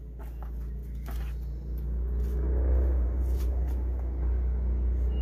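A low rumble that grows louder over the first three seconds, with a few light clicks in the first second or so.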